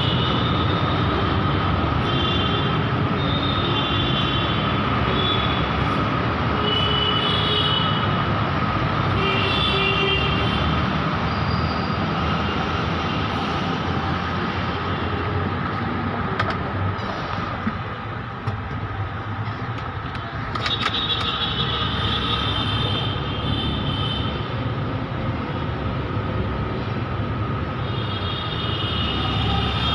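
A vehicle running on a road, with steady road and engine noise and a steady whine. Repeated short high-pitched tones come over it, several times early on and again about two-thirds of the way through and near the end.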